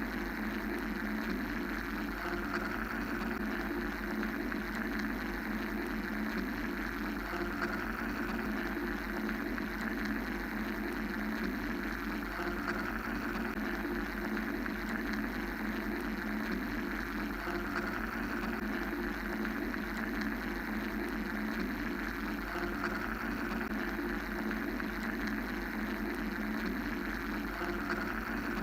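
Steady mechanical white noise: an even, unbroken machine-like hum and hiss with a low rumble underneath, swelling and easing gently every few seconds.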